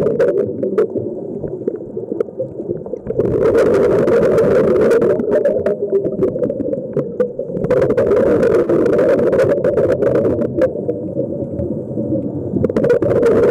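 Underwater sound of a scuba diver breathing through a regulator: three surges of exhaled bubbles rushing, a few seconds apart, with quieter inhalation spells between, heard muffled through the camera housing. Sharp clicks are scattered throughout.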